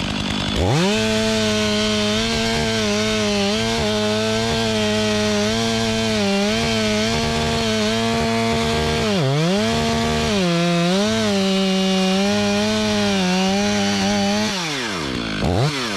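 Stihl chainsaw making the back cut through a tree trunk: it revs up sharply just under a second in and holds at full throttle under load, wavering slightly as it cuts. It dips off throttle briefly about 9 s in, resumes, then drops back near the end with one short blip of the throttle.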